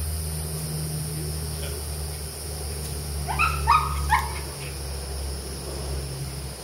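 A dog barking three times in quick succession, short high yips, about three and a half seconds in, over a low steady hum.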